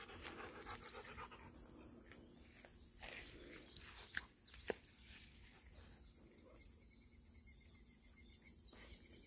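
Near silence: faint outdoor background with a couple of faint ticks about four and a half seconds in.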